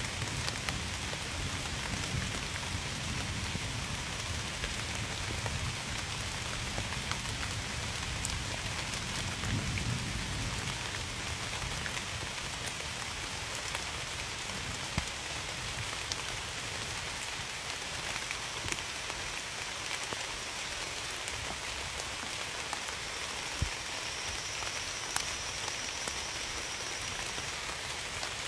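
Steady heavy rain, with individual drops ticking sharply on a nearby surface. A low rumble of distant thunder runs through the first dozen seconds, swelling about ten seconds in, then fades.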